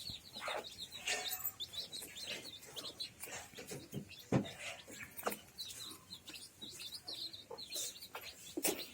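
Young chicks peeping in many short, high chirps while feeding, with occasional lower clucks among them.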